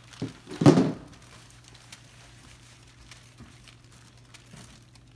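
Paint being flung off a spinning canvas, spattering faintly against the plastic sheeting lining the pool as scattered light ticks and rustle. A single loud, short thump comes under a second in.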